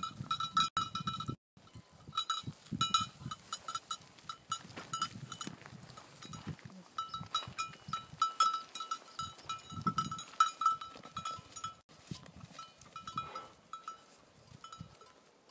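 Sheep's collar bell clinking again and again with a clear ringing tone as the ewe moves her head, over low rumbling close to the microphone.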